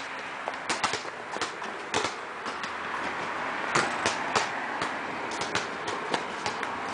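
Scattered sharp knocks of a basketball on a concrete court, with a cluster of them about four seconds in, over a steady hiss.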